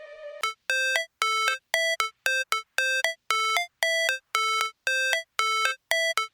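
Music: an electronic melody of short beeping notes, about three a second, alternating between two pitches like a ringtone, after a faint held tone at the start.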